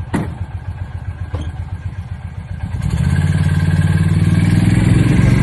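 Engine of an open-sided, canopied vehicle running while it drives along, with a steady low pulsing hum that grows louder about halfway through. Two sharp clicks near the start and about a second and a half in.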